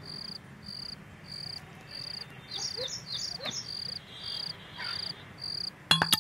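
Cricket chirping steadily at night, about one and a half chirps a second, with a few short falling calls from another creature around the middle. Percussive music with sharp wood-block-like clicks comes in just before the end.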